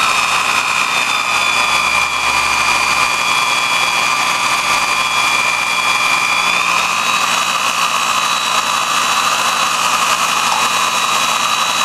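Power tool spinning a 5-inch abrasive knife-sharpening disc, running steadily with a high whine and a grinding hiss. The whine dips slightly in pitch for a few seconds in the middle, then comes back up.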